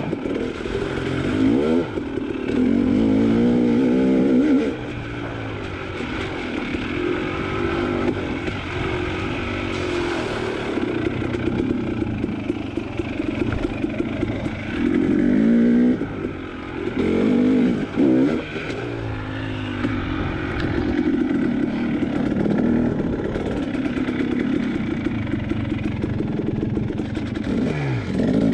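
KTM dirt bike engine revving up and down as the throttle is worked over rough trail, with several short bursts of hard revs.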